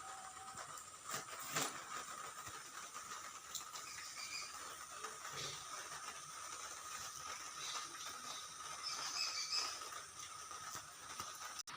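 Birds chirping faintly a few times over a steady hiss and a constant thin whine, with a couple of soft clicks about a second in.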